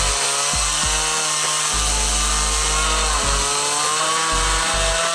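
Chainsaw running and cutting wood, its engine pitch wavering up and down under load, with background music playing.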